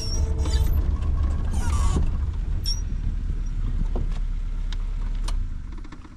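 Safari vehicle driving, its engine running as a steady low rumble with scattered clicks and rattles. The sound dies away quickly near the end.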